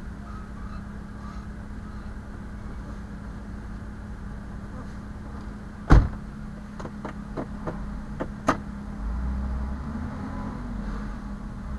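Steady low hum of an idling vehicle. About six seconds in a door shuts with a loud thump, followed by a quick run of about six light clicks. The low rumble grows stronger near the end.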